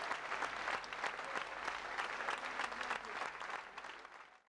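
Audience applauding in a theatre hall, a dense steady clapping that fades out near the end.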